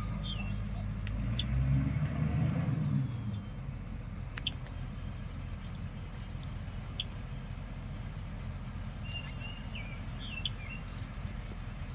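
Bulldozer engine working, its note rising and falling for the first few seconds, then settling into a quieter, steady low rumble. Birds chirp now and then over it.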